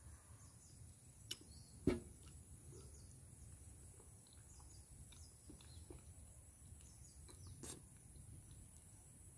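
Quiet rural background: faint bird chirps over a low steady rumble, broken by a few sharp clicks, the loudest about two seconds in.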